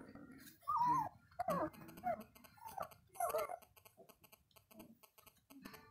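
Young white Swiss shepherd puppies whimpering: several short squeaky cries that rise and fall in pitch, bunched in the first half and fading after, over a faint rapid ticking.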